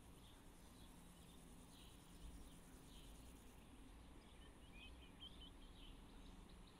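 Near silence with faint, scattered bird chirps, most of them bunched together about two-thirds of the way in.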